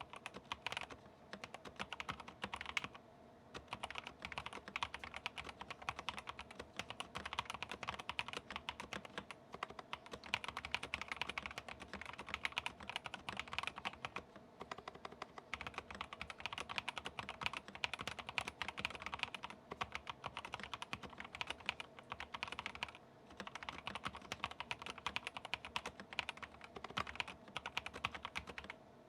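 Fast, steady typing on an Epomaker Shadow X mechanical keyboard with stock Epomaker Bluebird switches, a polycarbonate plate and PBT ASA-profile keycaps, with a few brief pauses. The typing stops near the end.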